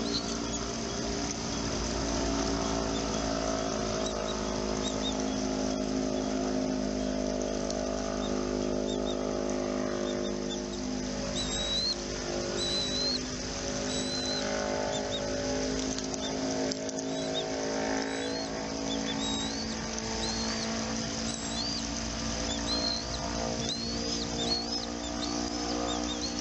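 A motor engine running steadily nearby, its pitch drifting slowly, with short high bird chirps repeating over it.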